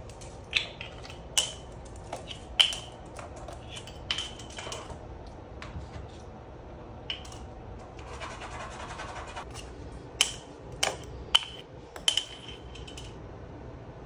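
Small bottle cap clicking and clattering on a hard floor as an African grey parrot pecks and flicks it with its beak: a scatter of sharp knocks, each with a short ringing tone, and a brief stretch of scraping as the cap is pushed along the floor.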